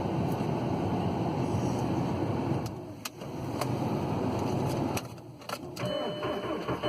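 2000 Volkswagen Jetta TDI's 1.9-litre four-cylinder turbodiesel being started at about 0 °F on a very cold morning. The engine turns over, the sound breaks off twice, and about six seconds in a steady running sound with a thin whine takes over as the engine catches.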